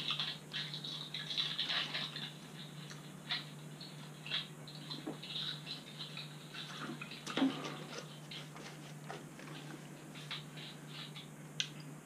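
Crinkling and clicking of plastic: a snack wrapper being unwrapped and a plastic drink bottle opened and handled. It comes as scattered small clicks, with a louder knock about seven seconds in, over a steady low hum.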